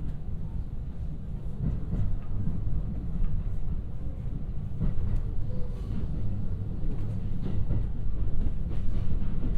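Cabin sound of a JR West 223-series electric train running along the track: a steady low rumble from wheels and running gear, with a few faint clicks.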